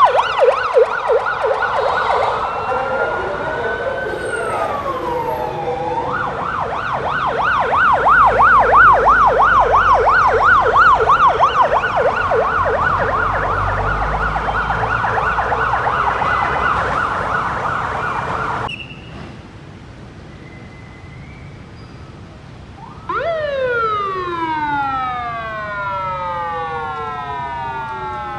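Motorcade sirens from a traffic-police escort car and an ambulance: a fast warbling yelp, with a slower wail rising and falling a few seconds in, and engine rumble as the vehicles pass. After an abrupt drop, it is quieter for a few seconds, then a siren wail sweeps slowly down in pitch and starts to rise again near the end.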